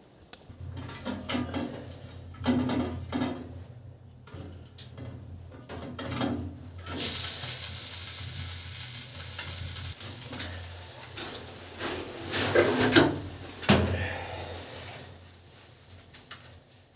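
Food frying in a hot pan while it is stirred, with utensils clinking and scraping against the pan. The sizzling becomes loud about seven seconds in and dies down near the end.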